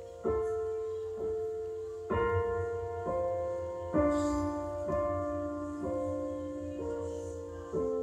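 Slow piano music played back through open-baffle hi-fi speakers in a room. A note or chord is struck about once a second, and each one rings and fades.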